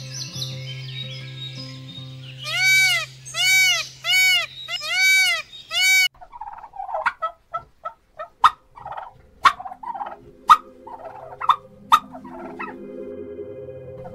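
Indian peafowl calling: a run of five loud, ringing honks, each rising then falling in pitch, less than a second apart, starting about three seconds in. After about six seconds the calls stop and a string of sharp clicks and short calls follows, about one a second.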